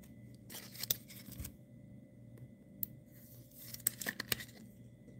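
Faint handling noise of trading cards and a clear plastic card sleeve: soft rustling with a few small, sharp clicks.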